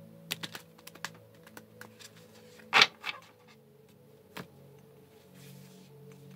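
A deck of cards handled against a tabletop: a run of light, irregular clicks and taps as the cards are shuffled and squared, with a louder burst near the middle and a last single tap about a second and a half later.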